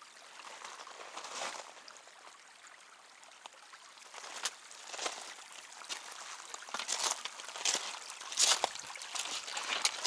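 Shallow creek water trickling over rocks, with a series of irregular sharp scuffs or splashes in the second half that grow louder toward the end.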